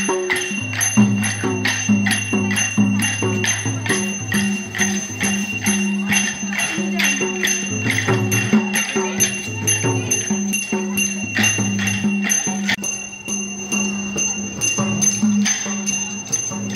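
A two-headed barrel drum played in a fast, even beat of about four strokes a second, with a steady metallic ringing over it.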